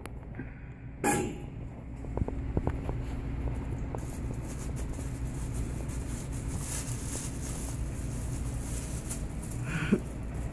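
Steady low hum of store background noise, with a sharp knock about a second in and scattered light clicks and rustles after it.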